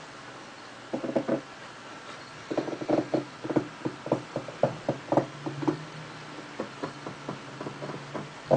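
Long-haired cat eating from a hand: a run of short, irregular chewing clicks, a few a second, coming in groups with brief pauses.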